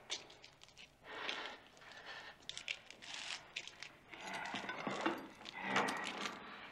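Heavy iron chains rattling and scraping over a stone coffin lid as hands pull them loose, in a string of uneven clinks and drags.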